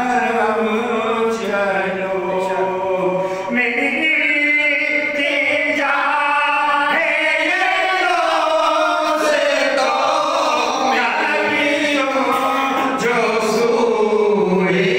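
A man singing a naat, an unaccompanied Islamic devotional song, into a handheld microphone. He draws out long notes that bend and waver in pitch.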